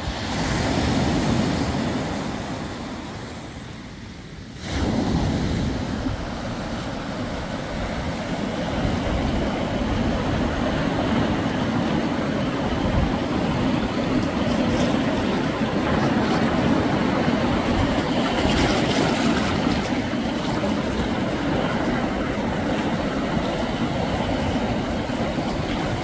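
Sea waves breaking and washing over a pebble shore. One surge swells and falls away in the first few seconds. About five seconds in, a sudden, steady rush of water over the stones begins and carries on.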